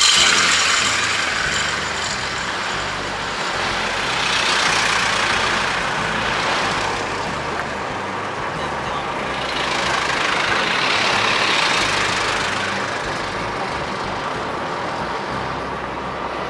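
Vintage Toyota Land Cruiser 40-series trucks driving past. Their engine and road noise swells and fades as they go by: loudest at the start, again about four seconds in, and around ten to twelve seconds in.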